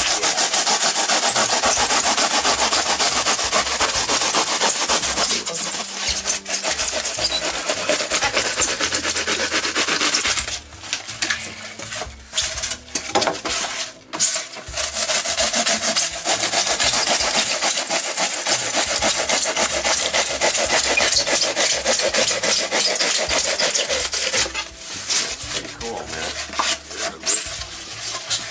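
Pruning saw blade cutting through pink foam board in fast back-and-forth strokes, halting briefly twice along the way.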